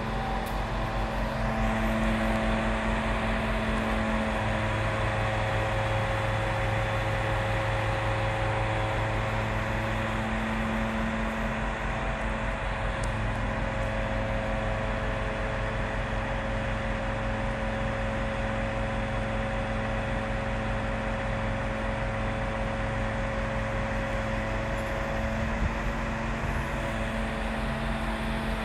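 Aerial platform fire truck running steadily while its hydraulic boom and basket move, a constant mechanical drone with several held tones over a low hum.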